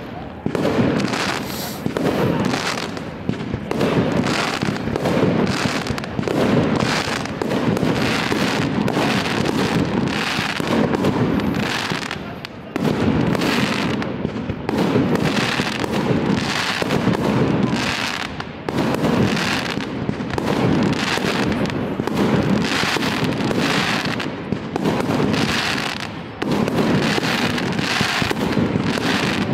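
Aerial fireworks display: shells bursting in a dense, near-continuous barrage of bangs, several a second, with a couple of brief lulls.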